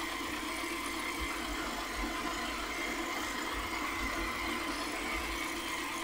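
Trifo Lucy robot vacuum running while it is steered by hand from the app: a steady motor hum, with a faint low rumble coming and going.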